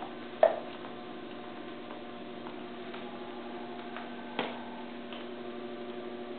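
A few sharp clicks from a Doberman chasing bubbles on a hardwood floor, over a steady hum. The loudest click comes about half a second in, and another a little past four seconds.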